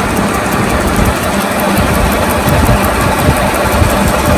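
Metal lathe running, spinning a UHMW plastic tube in its chuck: a steady mechanical drone with a faint, even ticking about five or six times a second.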